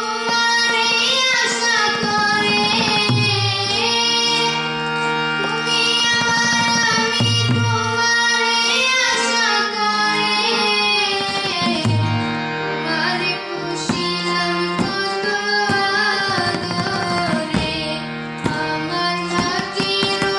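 Hand-pumped harmonium playing held notes and chords while a group of girls sing a song along with it.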